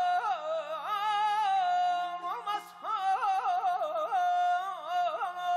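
Male mugham singer's voice in a wordless melismatic passage with rapid throat trills (tahrir), a brief break about two seconds in, then a long held high note near the end, over a faint steady low drone.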